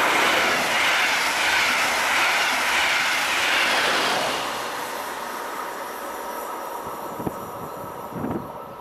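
Red DB double-deck regional passenger train passing at speed, its wheels on the rails making a loud rushing noise that fades away from about four seconds in as it recedes. Two brief faint sounds near the end.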